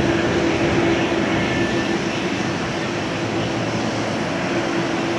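Jet airliner engines running: a steady rushing noise with a low steady hum through it.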